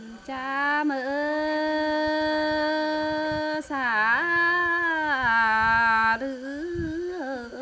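A woman singing a Tày lượn cọi folk song solo and unaccompanied. She holds two long notes, the second opening with a swooping dip in pitch about four seconds in, then moves into a shorter wavering phrase near the end.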